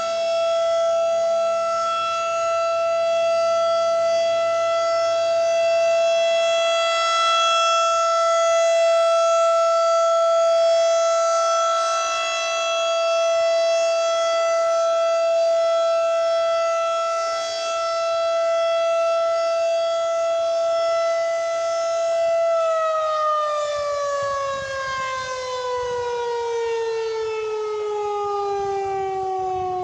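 Civil defense tornado siren sounding its weekly test signal: a loud, steady held tone. About three-quarters of the way through it begins winding down, its pitch sliding slowly lower.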